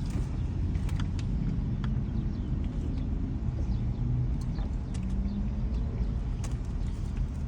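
Someone eating chicken fried rice, with scattered small clicks and taps, over a steady low rumble.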